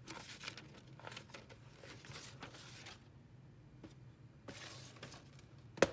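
Hands handling a black paper-covered cardboard watch box: several short scrapes and rustles as its parts slide against each other, then a sharp tap near the end.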